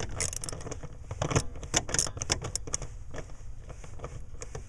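Irregular clicks and light rattles of hand-tool work: a 5/16 socket is backing out the screw that holds the blower motor resistor.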